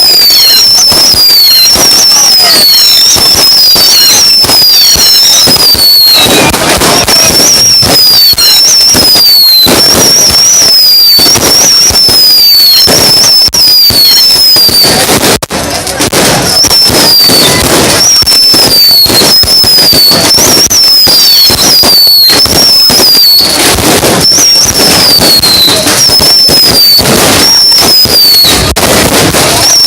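Fireworks going off continuously and loudly: rapid, densely packed bangs and crackles, with a shrill whistle falling in pitch about once a second throughout. The bangs ease off briefly about halfway through.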